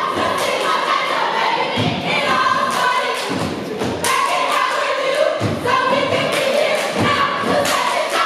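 Sorority step team stepping: heavy stomps and sharp claps in an uneven rhythm, with the team chanting together in unison.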